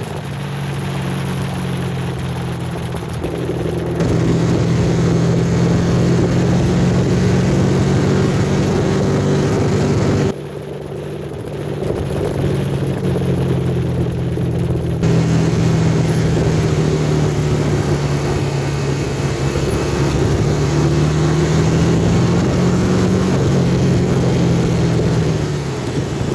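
A vehicle engine running at a steady speed, its pitch drifting only slightly, under a constant rushing hiss of wind or road noise. The sound changes abruptly a few times, as at cuts.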